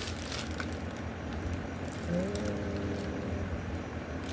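Plastic mailer bag rustling and crinkling faintly as a package is opened and an item pulled out, with a short hummed "mm" about two seconds in.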